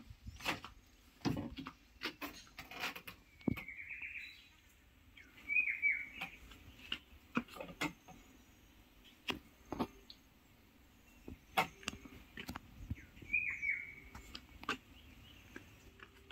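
A bird gives three short high chirps over scattered, irregular sharp knocks and clicks.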